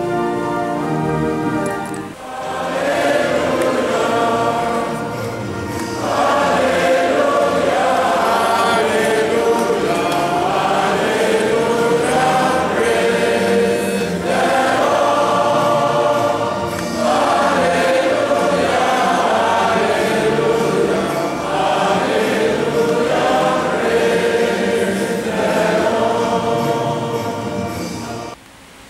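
A choir of many voices singing a hymn in long phrases, opening on a held chord and breaking off shortly before the end.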